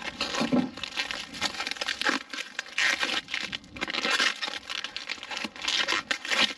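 White packing wrap crinkling and rustling in irregular bursts as hands pull it off a metal hitch bracket in a cardboard box.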